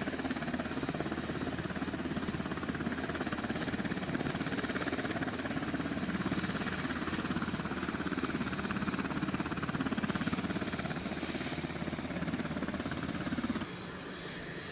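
Navy Seahawk helicopter running on the flight deck, its main rotor turning and engines running steadily. Near the end the sound drops to a lower level.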